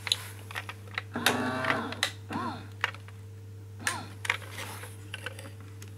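Scattered light clicks and plastic handling noises from a radio-controlled Dalek toy and its remote as it is handled and checked, with a few brief pitched sounds about a second in.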